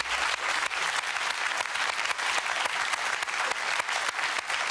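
Studio audience clapping: steady applause of many hands.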